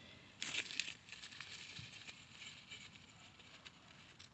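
A hand digging and scratching in dry garden soil for a garlic bulb, with dry leaves and stalks crackling. A louder burst of crackling comes about half a second in, then fainter rustling and scratching.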